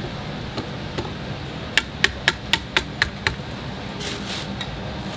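A wire whisk knocked sharply seven times, about four a second, against the rim of a plastic basin of fried-chicken batter. A steady low hum runs underneath.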